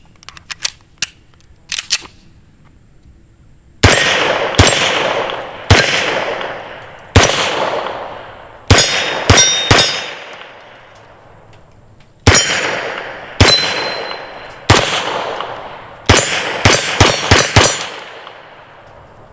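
Beretta M9 9mm pistol fired about fifteen times, spaced out at first and then in a quick string near the end. Steel targets ring after several hits. The shooting is preceded by a few metallic handling clicks as the pistol is readied.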